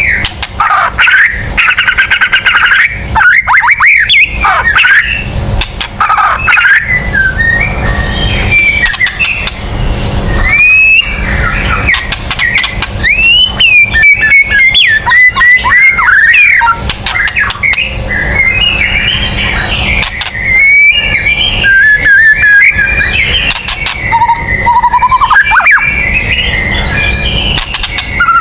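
White-rumped shama (murai batu) in full song: a loud, continuous, rapidly varied run of gliding whistles, chirps and harsh notes with sharp clicking sounds.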